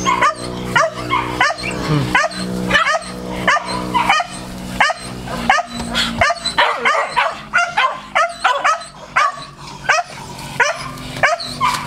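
Dog barking rapidly and without pause, about three sharp barks a second, at a tethered wild boar piglet.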